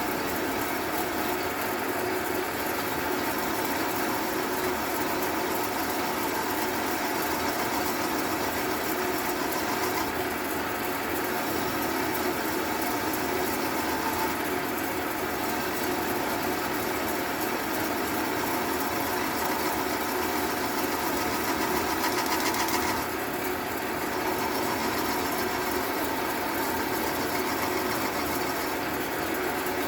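Cue-repair lathe running steadily, spinning a pool cue shaft, with an even motor hum.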